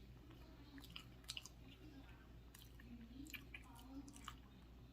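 Faint chewing of a burger, with scattered small wet mouth clicks over a low steady hum.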